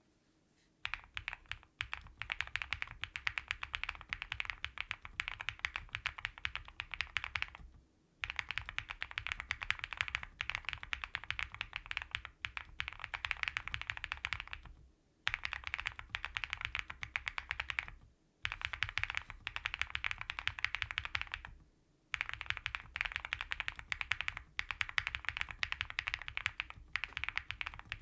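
Fast typing on a QK100 custom mechanical keyboard with linear switches (Bsun RAW stems and springs in Cherry MX Black housings), a PC plate, full foam, soft gaskets and TUT Night Owl keycaps. Quick continuous keystrokes run in stretches of several seconds, broken by short pauses four times.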